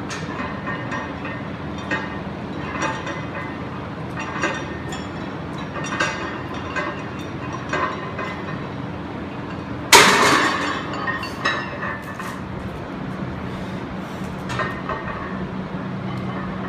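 Weight plates clinking and rattling on the sleeves of a loaded barbell as it is pressed up and lowered for bench-press reps. The clinks come about once a second, with one much louder metal clank about ten seconds in, over a steady low hum.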